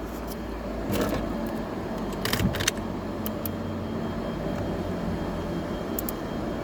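A few scattered, irregular clicks as the newly installed hazard and turn-signal switch assembly is worked to test it, including a quick run of three clicks a little past two seconds in, over a steady low hum.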